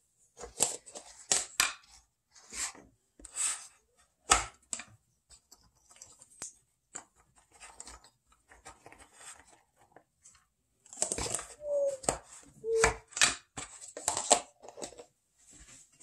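African grey parrot chewing and tearing at something with its beak: irregular crisp snips and crunches, with two brief squeaks about three quarters of the way in.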